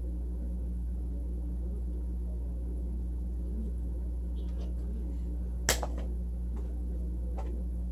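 A steady low hum, with one sharp click about six seconds in and a few fainter ticks around it.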